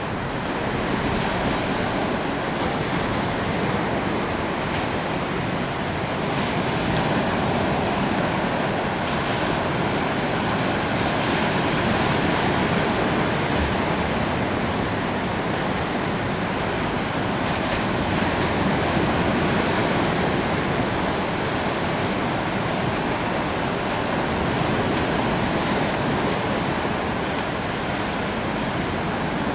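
Wind over choppy river water: a steady rushing noise of small breaking waves and gusts of wind.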